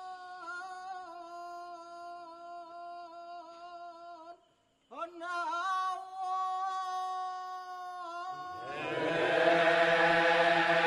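Kecak chant: a single voice holds long chanted notes with small turns in pitch, breaks off briefly about four seconds in, then resumes. Near the end a large chorus of voices comes in, much louder.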